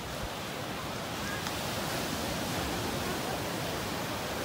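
Sea surf breaking and washing up the sand, a steady rush of wave noise.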